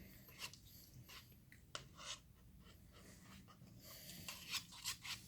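Faint, scattered soft clicks and rubbing from homemade slime being handled, growing busier near the end.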